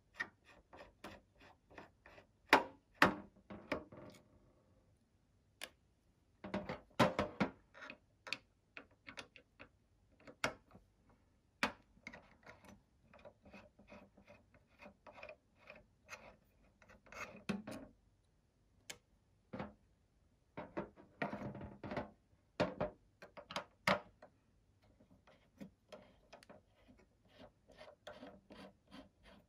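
Precision screwdriver working small screws out of the metal miner housing: irregular light clicks and scrapes of the bit in the screw heads, with a few louder knocks as the parts are handled.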